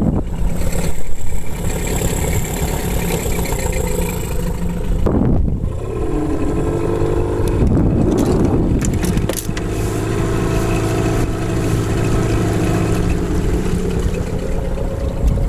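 8 hp outboard motor pushing a Gheenoe canoe across the water, running steadily under way. Its pitch dips and climbs again about five to seven seconds in.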